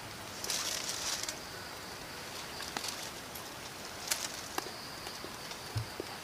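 Quiet forest background with a short rustle and a few small clicks from hands handling leaves and small objects on the ground, and a thin steady high tone in the second half.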